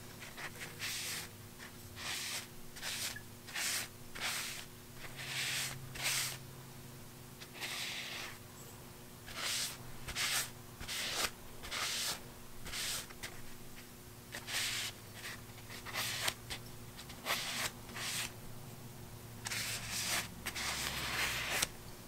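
A folded blue paper towel rubbing wax-and-oil butcher block conditioner into sanded walnut box pieces: soft, irregular swishing strokes, roughly one a second, with a longer spell of quick rubbing near the end.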